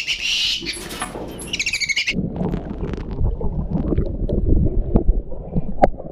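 Bird calls, a quick repeated high twitter, for about two seconds. Then a different animal takes over with a loud, rough, low call that runs on to the end.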